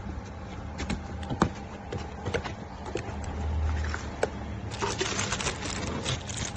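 Handling noise: scattered clicks and knocks over a low steady hum, with denser rustling and clatter starting about five seconds in.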